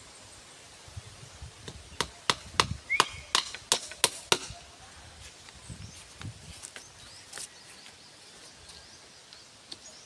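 A tool striking bamboo in a quick run of about eight sharp blows, roughly three a second, then a pause with a couple of fainter knocks.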